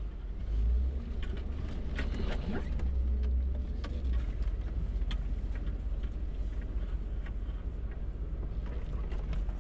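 Off-road 4x4 crawling slowly over a rocky forest trail: a low, steady engine and drivetrain rumble, heavier for the first few seconds, with scattered clicks and knocks as the vehicle works over the rough ground.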